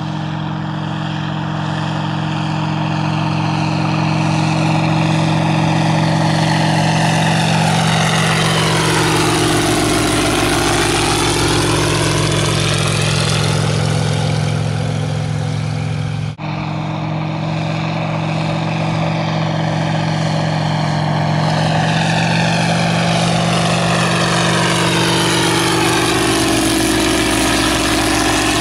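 Engine and propeller of an ultralight Caudron G.III replica biplane in low flight, running steadily as it passes by twice, each pass bringing a slow swooping whoosh that dips and rises in pitch. The sound cuts out for an instant between the two passes.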